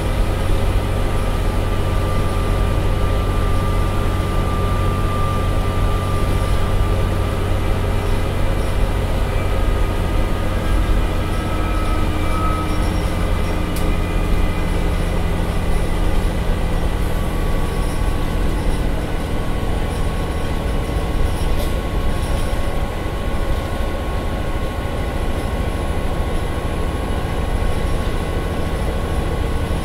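Interior sound of a Scania Omnicity single-deck bus's rear-mounted diesel engine pulling hard on the road, heard from the rear seats: a steady low rumble with a faint whine that shifts in pitch.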